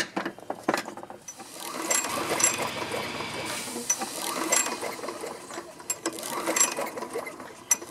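Toro Recycler mower engine being cranked over with its spark plug out and grounded against the block. A continuous rattling mechanical whir starts about a second in and runs several seconds. It is a spark test on the engine while hot, since the engine won't restart hot.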